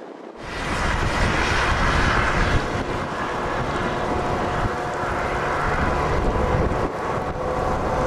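Wind and road noise of a bicycle ride along a wet highway, a steady loud rush with a deep rumble buffeting the microphone. It cuts in suddenly just after the start.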